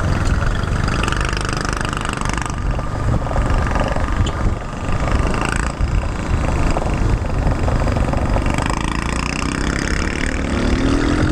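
Small motor scooter's engine running as it rides slowly through traffic, over a steady low rumble of wind and road noise. The engine note rises as it speeds up near the end.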